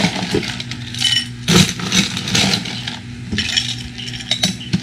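Glassware and bar utensils clinking and knocking as a drink is mixed, with a sharp knock about a second and a half in and a few light clinks near the end.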